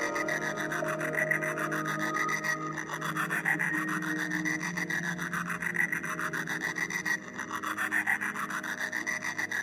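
Instrumental outro of a pop song: sustained chords with a fast, even, scratchy pulsing texture over them.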